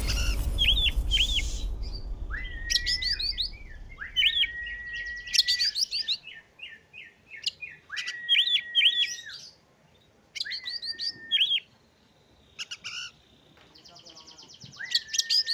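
Oriental magpie-robin (kacer) singing: several phrases, each a held whistled note with quick sharp high notes over it, every two seconds or so with short pauses between. A loud low rumble fades out over the first few seconds.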